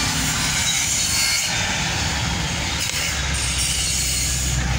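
Steady engine and road noise of a vehicle moving along a street, a rushing hiss over a low hum that strengthens a little near the end.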